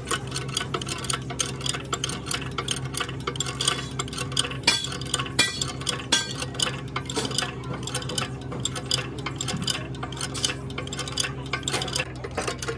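Hydraulic bottle jack being pumped by hand with a steel bar, pressing against the inside of a road roller's steel wheel rim: rapid, irregular metallic clicks and clinks over a steady low machine hum.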